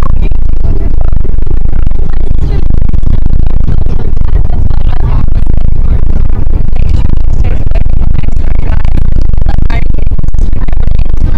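Loud, steady rumble inside a moving passenger van, heavy in the low end and pushing the microphone to its limit, with music faintly beneath it.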